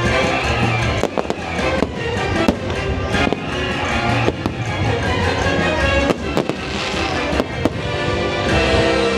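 Fireworks display bursting with many sharp bangs and crackles, set to loud show music.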